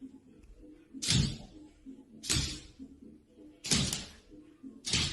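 A dog barking: four short, loud barks about a second apart.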